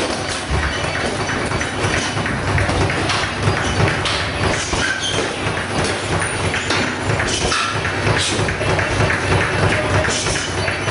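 Boxing sparring: gloved punches landing on gloves and headgear as irregular thuds and slaps, over a steady noisy gym background.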